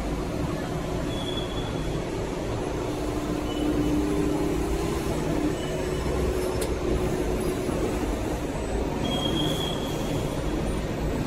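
Steady industrial machinery noise: a dense low running rumble with a faint steady tone, and a few brief, faint high squeals.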